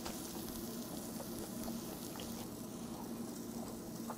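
Beef slices sizzling faintly on a hot tabletop barbecue grill with its flame turned off: a steady hiss with scattered small pops, over a low steady hum.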